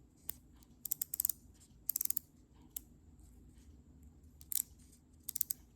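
Light metal clicks in short quick clusters from handling a 1930s Snap-on M70 flat ratchet.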